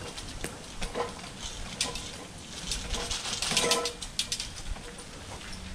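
Rollator walker rattling and clicking as it is pushed over leaf litter and dirt, with a short pitched squeal about halfway through.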